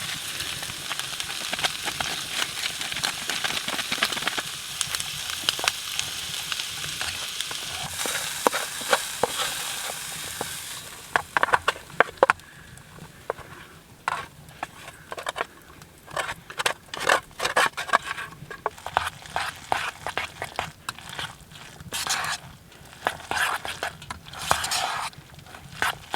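Food sizzling in a pot on a wood stove for about the first eleven seconds. After that the sizzle drops away and a utensil scrapes and knocks irregularly in the pot as the food is stirred and mixed.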